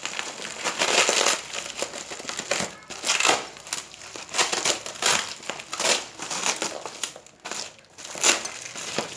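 Packaging being crumpled and pulled at by hand in irregular rustling bursts with short pauses, as someone struggles to get a parcel open.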